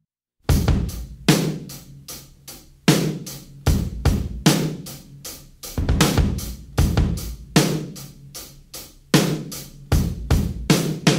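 Rock drum kit playing a slow, heavy solo beat: bass drum and snare hits with cymbals in a steady rhythm, starting about half a second in.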